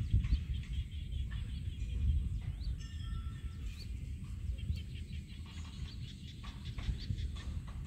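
Outdoor field ambience: a steady low rumble, like wind on the microphone, under many short, high chirps of birds calling throughout.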